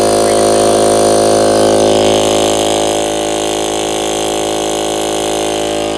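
Harbor Freight air compressor running steadily with a freshly replaced head gasket, its motor and pump giving an even drone. About two seconds in the sound shifts slightly, a little quieter, with a higher hiss coming in.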